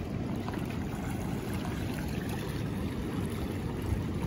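River current rushing steadily: an even, low noise of moving water.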